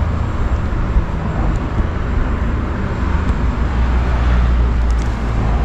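Steady low rumble of road traffic, with no single distinct event standing out.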